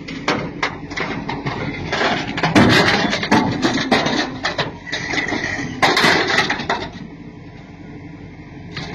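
Irregular series of knocks and crashes with clattering, like objects striking and breaking, dying down to a quieter rumble about seven seconds in.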